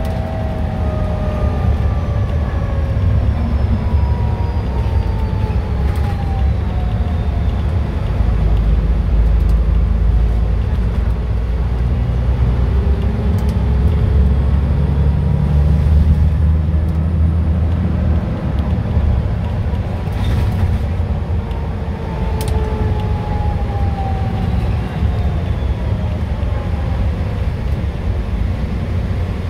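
Dennis Trident double-decker bus engine running under way, a deep steady rumble that swells to its loudest about halfway through. Over it are drivetrain whines that slide in pitch as the bus speeds up and slows.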